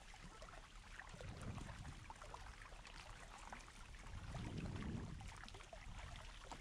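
Faint kayak paddling: two low swishes of paddle strokes about three seconds apart, with water trickling and dripping off the paddle blades.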